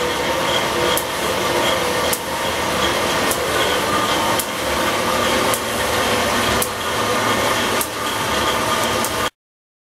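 A machine running steadily, with a light click about once a second; it cuts off suddenly near the end.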